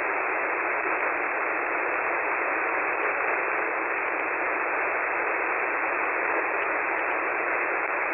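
Steady shortwave static from an online HF receiver (KiwiSDR) tuned in single sideband: an even hiss held within a narrow voice passband, with faint ticks above it. The Emergency Action Message voice is lost under the noise.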